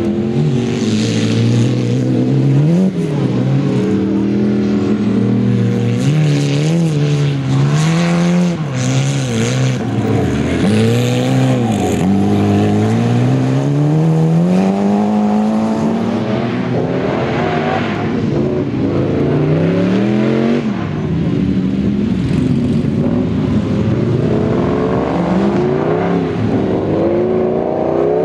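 Rally-prepared hatchback race cars racing on dirt, their engines revving hard. The pitch climbs and drops again and again as they shift gears and lift off.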